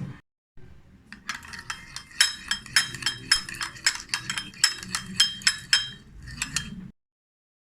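A spoon clinking over and over against a small ringing cup, as when stirring a remedy mixture, three or four clinks a second. The clinks cut off suddenly near the end.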